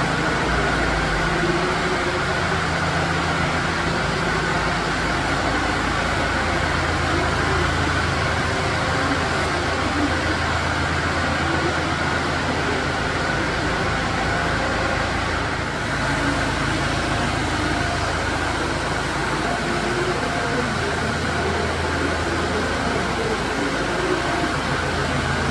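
Kubota M5-111D tractor's four-cylinder diesel engine idling steadily, a constant low hum under an even hiss.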